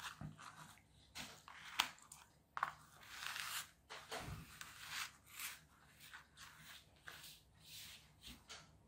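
Thin plastic kit sheets and small punched-out parts being handled and slid about on a cutting mat: faint, irregular rustling and scraping with light clicks, the sharpest about two seconds in.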